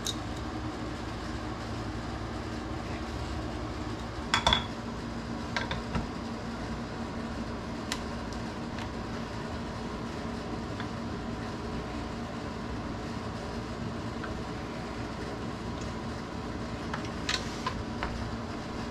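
Clinks and knocks of a brown glass beer bottle and a floor-standing wine corker being handled, the loudest a ringing clatter about four and a half seconds in, over a steady background hum.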